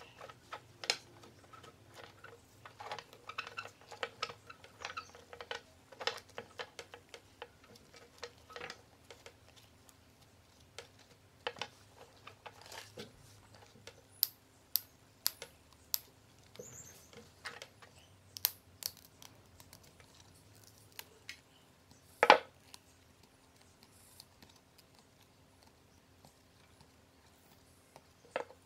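Small diagonal cutters snipping and picking at the crusted centre rim of old paper speaker cones: scattered clicks and light scraping, a run of four sharp snips about half a second apart around the middle, and one louder knock about two-thirds of the way through.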